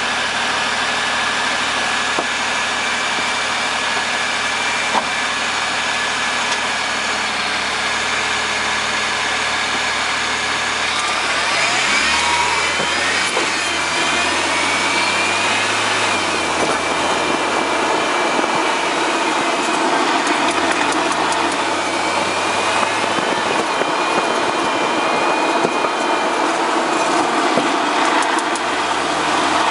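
BMW 1 Series engine heard from beside the front left wheel, idling steadily, then its note shifting and rising about twelve seconds in as the car moves off. Short sharp clicks sound over it, a run just after it moves off and another near the end: the clicking the car makes when turning right.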